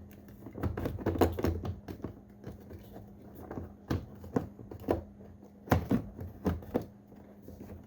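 A hard plastic door trim piece being handled and pushed into place on a car's door panel: scattered, irregular clicks and knocks, the sharpest a little over a second in and again near six seconds.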